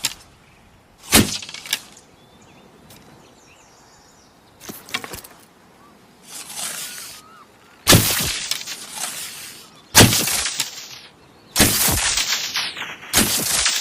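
Bow-and-arrow sound effects, one after another. A sharp crack comes about a second in and a smaller one follows. A quieter cluster of hits and a swelling whoosh come next. In the second half, four hard hits about every one and a half to two seconds each trail off into a hiss that falls in pitch.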